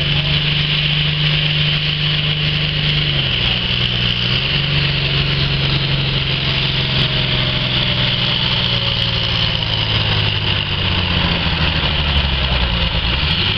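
Farm tractor's diesel engine running hard under heavy load as it drags a weight-transfer sled down a pulling track. The engine note steps down in pitch about three seconds in and shifts again a little later, then holds steady.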